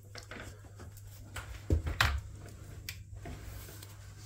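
Two dull thumps about a third of a second apart near the middle, amid light clicks and handling rustles, as the shower riser rail is pushed into its wall bracket.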